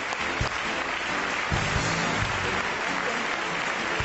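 Audience applauding steadily, with background music playing underneath.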